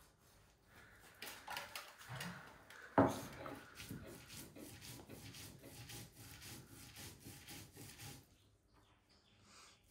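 Spices ground by hand on a stone slab: a knock about three seconds in, then a steady rasping rub at about three or four strokes a second that stops near the end.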